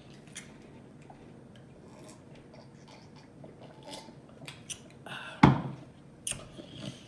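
Close-miked eating sounds: faint chewing with small mouth clicks, and one loud, sharp smack or crunch about five and a half seconds in.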